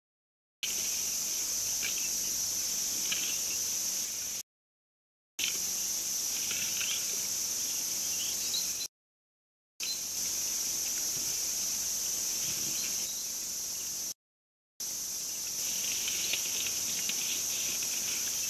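Steady high-pitched chorus of insects such as crickets, with faint scattered ticks beneath it. The sound cuts off to dead silence three times for about a second each as the stream's audio drops out.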